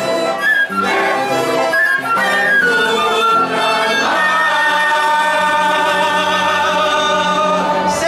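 Ensemble of violins with a flute playing a tune, which settles about halfway through onto a long held final chord.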